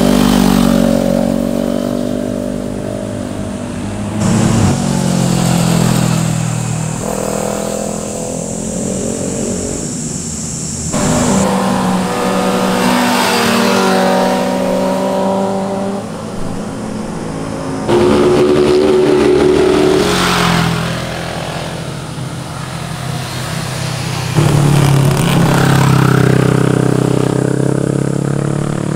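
Sport motorcycles passing one after another through a tight corner. Each engine rises and falls in pitch as the rider eases off into the bend and accelerates out of it.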